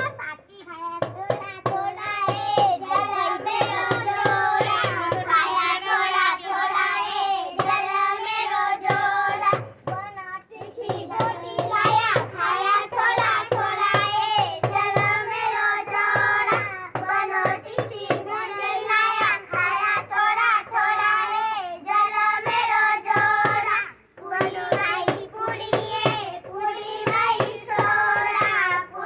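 Group of children singing a Banjara Holi song together, clapping hands in a steady rhythm, with two short breaks between lines.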